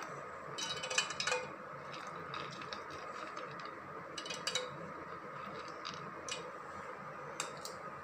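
Curry leaf berries dropped by hand into a steel kadai, making scattered light clicks and taps against the metal over a faint steady hiss.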